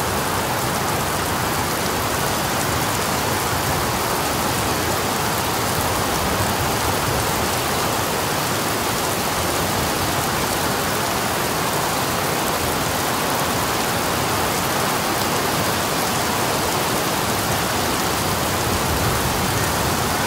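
Heavy hurricane rain falling steadily, an even, unbroken hiss.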